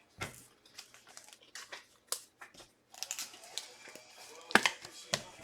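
Foil trading-card pack wrappers crinkling and tearing, and cards rustling as they are handled, a string of short sharp rustles with two sharper snaps near the end.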